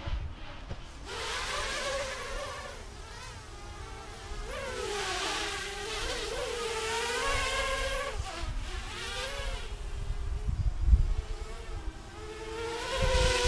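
ZMR 250 racing quadcopter flying overhead, its four brushless motors and propellers buzzing, the pitch rising and falling again and again as the throttle changes.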